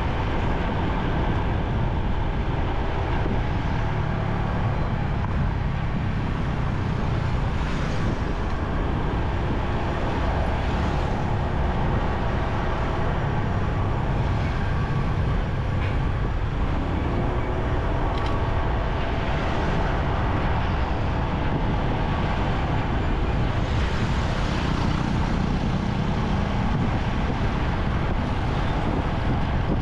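Steady motorcycle engine and road rumble in city traffic, with other vehicles around.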